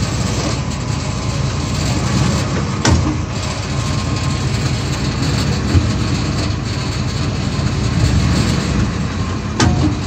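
2002 Ford F150's V8 idling, heard from under the truck, with two sharp clunks: one about three seconds in and one near the end. They are the knock of a worn rear driveshaft U-joint taking up slack as the transmission is shifted.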